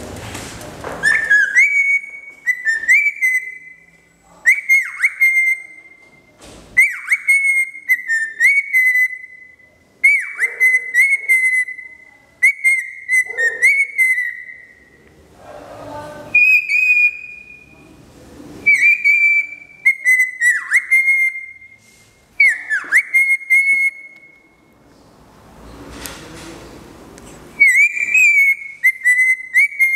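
Male cockatiel singing to its reflection in a mirror: the same short whistled phrase repeated over and over, with two brief pauses. This is courtship song directed at the reflection as if it were a mate.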